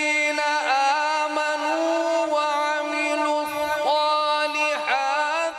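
A man reciting the Quran in the melodic mujawwad style, drawing a single syllable out into long held notes with wavering ornamental turns.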